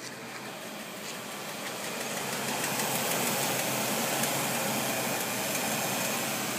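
Mercedes-Benz M116 V8 idling warm at about 800 rpm, with the air conditioning and other loads off. It grows louder over the first three seconds as the sound shifts from the cabin to the open engine bay, then runs steadily.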